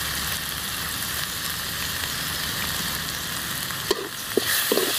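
Onion, ginger and garlic paste sizzling steadily in hot oil in a steel kadai as ground spices are added. From about four seconds in, a metal spatula stirs it, with a few sharp scrapes and clinks against the pan.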